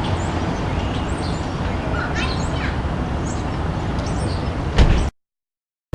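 Steady city traffic rumble with several short chirping bird calls in the middle, then a knock just before the sound cuts out abruptly to silence near the end.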